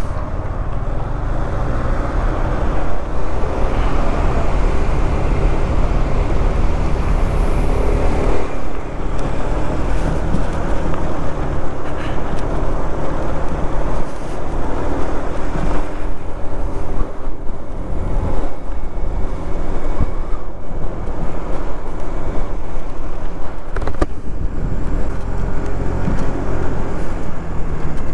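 Yamaha Majesty 155 scooter's single-cylinder engine running on the move through traffic, under a steady low rumble of wind on the microphone.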